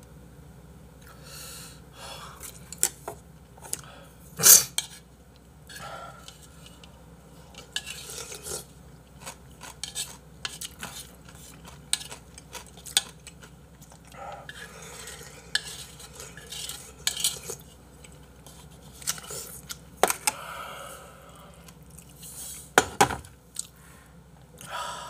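Eating at a table: chopsticks and a soup bowl clink and knock again and again, with slurps as soup is drunk straight from the tipped-up bowl. The sharpest knock comes about four and a half seconds in, and a few loud knocks near the end as the bowl is set down on the tray.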